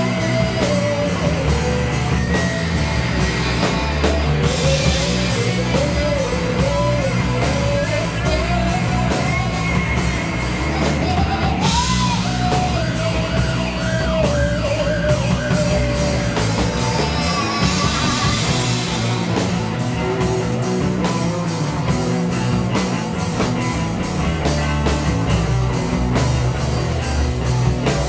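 A psychedelic rock band playing live: bass, drum kit with cymbals, and a wavering lead melody over a dense, loud full-band sound.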